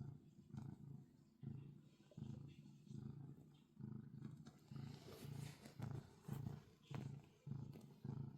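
Domestic cat purring close up: a low rumble that swells and fades about twice a second, with each breath in and out. From about halfway, a scratchy rustling of its paws kneading the bedding joins in.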